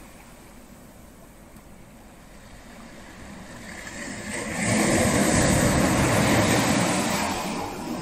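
Ocean surf on a beach: a low wash of water that builds into a loud breaking wave about halfway through, then eases off as it washes back.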